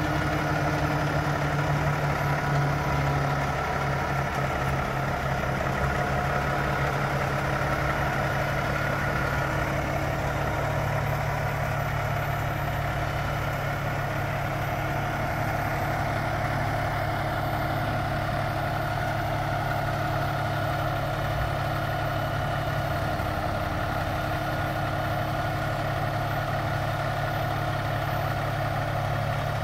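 Peterbilt semi truck's diesel engine idling steadily.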